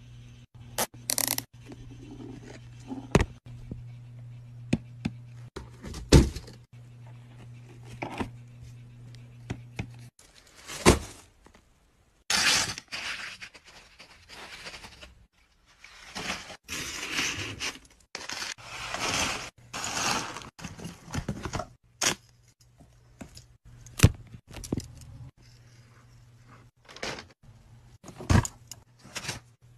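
Objects being handled and knocked about: sharp knocks and clicks with several longer scraping and rustling stretches, over a steady low hum for the first ten seconds or so and again near the end.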